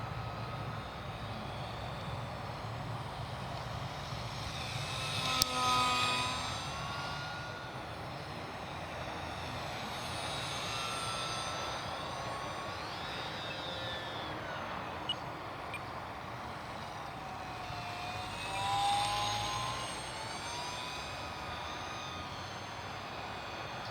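Brushless electric motor and propeller of an ultra-micro RC model Cessna 182 whining in flight. It grows louder and bends in pitch as the plane passes by, twice: about five seconds in and again near nineteen seconds.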